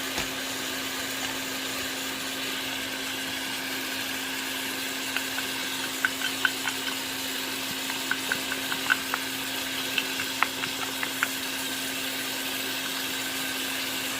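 Chicken, potatoes and carrots frying in a pan with a steady hiss over a constant hum. From about five to eleven seconds in, a cooking utensil clicks and taps against the pan in a quick irregular string as the curry powder is stirred in.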